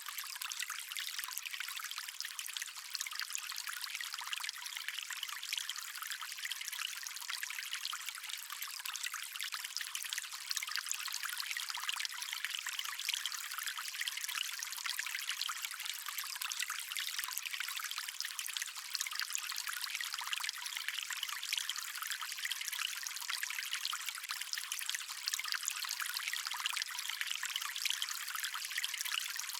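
Stream water running steadily, a continuous splashing hiss that is thin and bright, with almost no low rumble.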